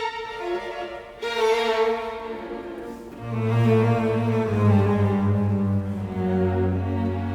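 Background music: slow bowed strings, with a cello holding low notes.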